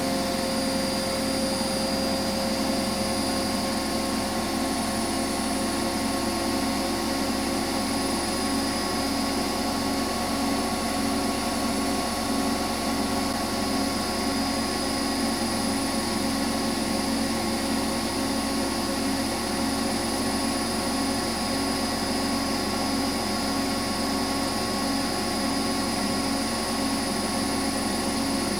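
Hotpoint Extra WMXTF742K washing machine spinning fast: a steady motor whine with a regular pulsing hum underneath, dipping slightly in pitch near the end.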